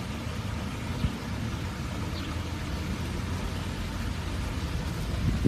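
Steady low rumble with a fainter hiss of outdoor background noise, with one soft knock about a second in.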